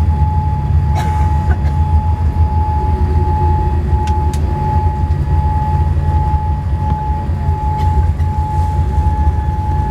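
Boeing 787 cabin noise: a steady low rumble with a constant whine from the aircraft's hydraulic system held on one pitch, which the uploader takes to be set off by the deployed flaps. A few faint clicks sound over it.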